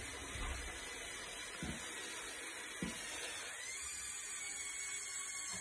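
Small electric motors of a LEGO Technic Liebherr R9800 excavator model whining steadily as the arm and bucket move, the whine rising slightly in pitch about three and a half seconds in. Two light knocks come between one and three seconds in, the second sharper.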